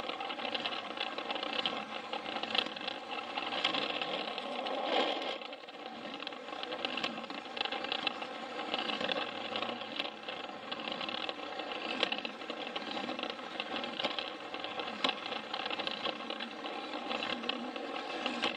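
A Plarail toy train's small battery motor and plastic gearbox whirring steadily as it runs along plastic track, with a few sharp clicks along the way.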